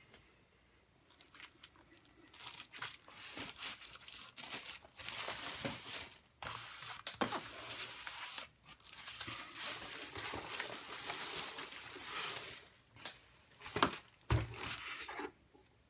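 Thin plastic wrapping bag crinkling and rustling as hands pull it off an induction cooker, with a few short pauses. Near the end, a couple of sharp knocks against the foam packing tray.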